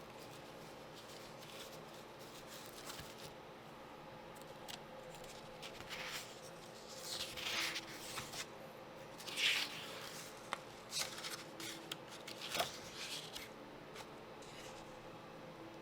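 Old, fragile books being handled and their pages turned by hand: a few soft papery swishes, the clearest about seven and nine and a half seconds in, with light taps between.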